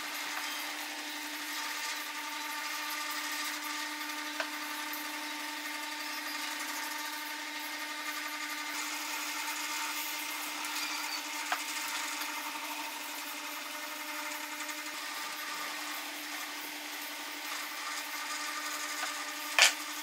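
A power tool running steadily on wood: a constant motor hum with a hiss of abrasion. There are two light ticks, and one sharp knock just before the end.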